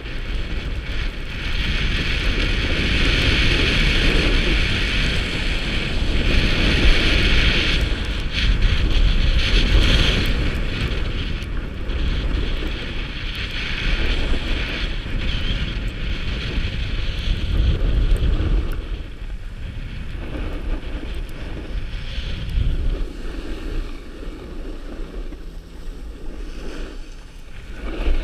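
Wind rushing and buffeting over the camera microphone while skiing downhill, with the steady scraping hiss of skis sliding on packed snow, strongest in the first ten seconds or so.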